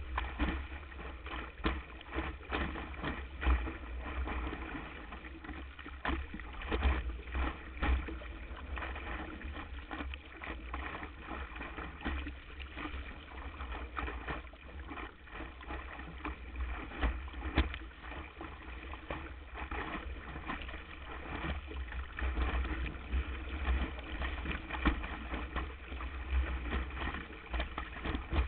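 Water rushing and splashing against a windsurf board sailing across the water, picked up by a GoPro mounted on the board's deck. There is a steady low rumble under frequent short slaps of spray and chop.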